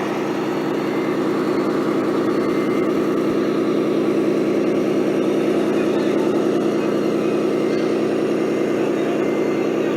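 Radio-controlled model construction vehicle running with a steady, engine-like drone that has a fine, rapid pulse. It grows a little louder over the first few seconds.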